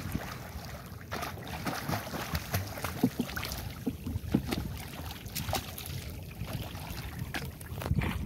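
Water splashing and sloshing in short, uneven bursts as people wade and swim through chest-deep floodwater.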